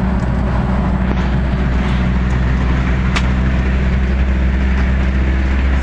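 Delivery van's engine and road noise heard from inside the cab while driving: a steady low drone, with one brief click about three seconds in.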